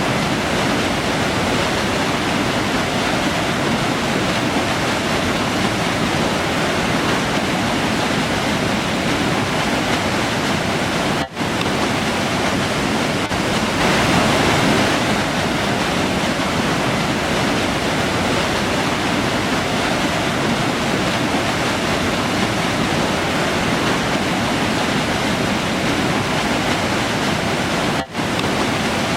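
Forest river rushing steadily over its bed. The sound dips out very briefly twice.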